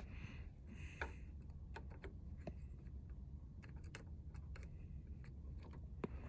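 Faint, irregular light clicks and taps, the sound of wiring connectors and a test-light probe being handled while checking plug terminals for power.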